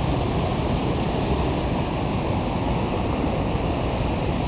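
Waterfall rushing steadily, a loud even roar of falling water with no breaks.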